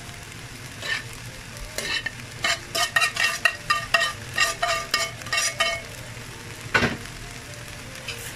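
Metal spatula clinking and scraping against a frying pan in a quick run of ringing strikes, over the steady sizzle of fried rice cooking. One last strike comes near the end.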